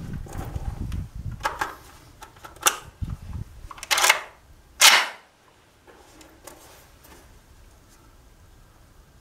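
Sharp metallic clacks of an AK-style 12-gauge semi-automatic shotgun being handled and readied to fire, the magazine and bolt being worked. There are four clacks in the first five seconds, and the last is the loudest.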